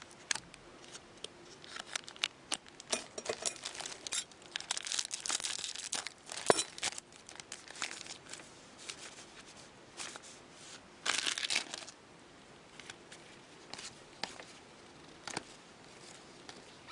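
Foil trading-card pack wrappers being crinkled and torn open by hand, with cards handled; irregular crackles and snaps, with a longer burst of crinkling about eleven seconds in.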